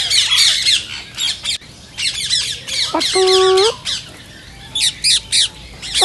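Indian ringneck parakeets squawking and chattering: quick, sharp, high calls crowd the first second and a half and come back in short bursts later. About three seconds in there is one short, held, voice-like call.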